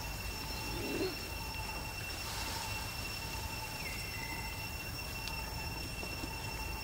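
Steady outdoor background ambience: a constant low rumble under a few unbroken high, even tones, with a faint short falling chirp about four seconds in.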